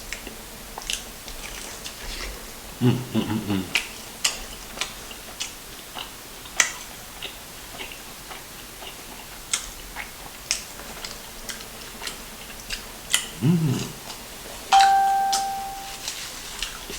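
Close-up eating sounds: irregular wet mouth clicks and lip smacks of someone eating fried chicken, with two brief low vocal sounds. Near the end a single chime-like ringing tone sounds for about a second.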